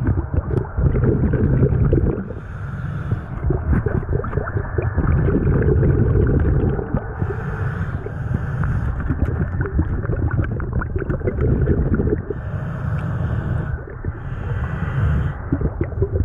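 Scuba diver breathing through a regulator, heard underwater: bursts of exhaled bubbles every few seconds over a steady low rumble of water, with small knocks and clicks throughout.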